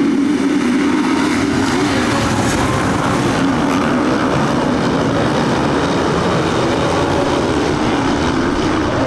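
A pack of motocross bikes accelerating away from the start together: many engines at once, blended into a dense, wavering wash of sound.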